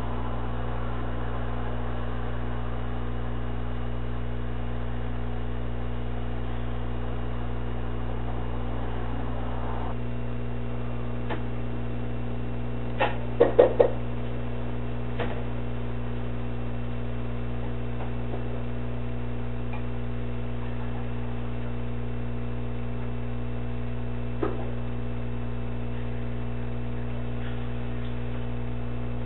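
Steady electrical mains hum. About halfway through there is a short cluster of three or four knocks, and later a single knock.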